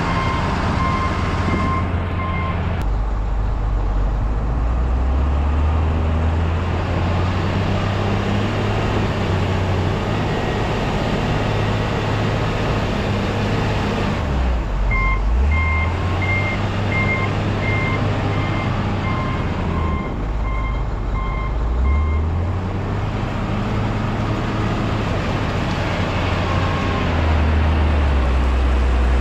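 Truck engine running while it manoeuvres, its low note stepping up and down, with a reversing alarm beeping in a steady series at the start and again for several seconds midway.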